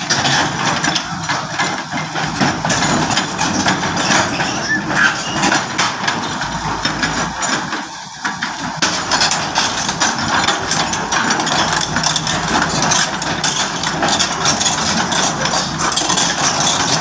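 Large crawler excavator's diesel engine running as the machine moves on its steel tracks, with a steady run of metallic knocks and clanks over the engine noise.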